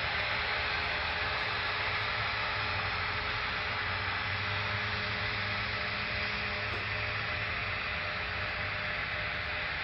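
N scale model freight cars rolling along the track, a steady hiss-like rolling noise with a low hum underneath.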